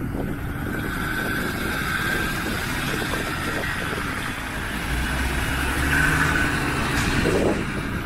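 Land Rover Defender driving slowly past close by on a gravel track, its engine running, getting louder as it comes alongside near the end.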